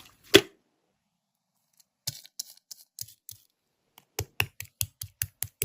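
A series of short, sharp clicks: a loud cluster about half a second in, a second of quiet, a few scattered clicks, then a quicker run of about six clicks a second near the end.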